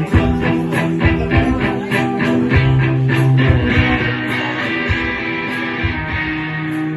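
Blues-rock band playing, guitar to the fore over a steady beat.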